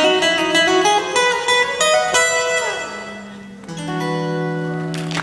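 Acoustic guitar played fingerstyle, in the closing bars of a piece: a quick run of plucked notes, a chord about two seconds in with a note sliding down in pitch and fading, then a final chord left ringing.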